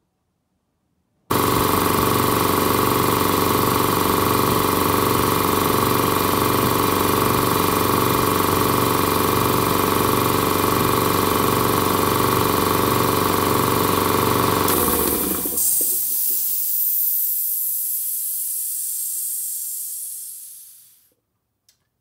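A 5 hp single-phase air compressor switched on through its magnetic starter: the motor and pump start suddenly and run steadily for about fourteen seconds, showing the new starter wiring works. Then the motor stops and a hiss of released air fades out over several seconds.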